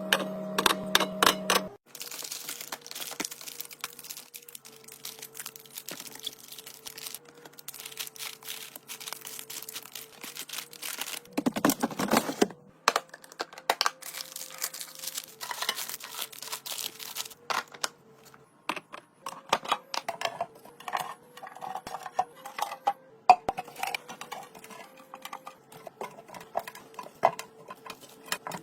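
Groceries being handled while a fridge is restocked: plastic packaging crinkling and tearing, with containers and jars clicking and knocking as they are set down. Music plays briefly at the start and stops about two seconds in, and there is one louder stretch of rustling about twelve seconds in.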